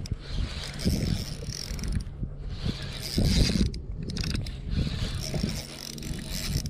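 Spinning reel being cranked while reeling in a hooked fish, its gears and spool whirring in several stretches with short pauses between turns.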